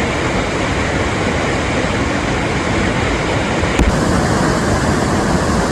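Steady rushing roar of a nearby waterfall, with a brief knock a little before the end.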